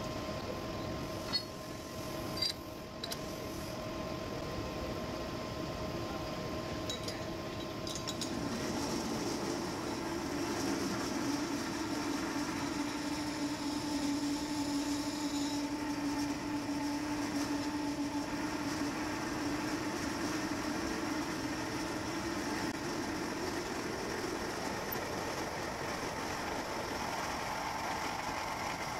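Metal lathe running steadily, with a few sharp metal clinks in the first three seconds. From about eight seconds in, a large twist drill held in the tailstock cuts into the spinning cast iron flange blank, adding a steady cutting tone over the lathe's running.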